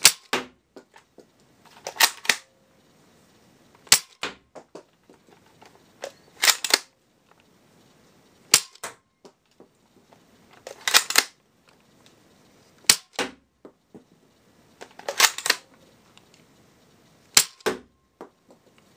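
Stock Dart Zone 12-shooter foam dart blaster fired five times, each shot a single sharp snap, about one every four and a half seconds, with a short cluster of clicks between shots. The darts are clocking around 36 feet per second.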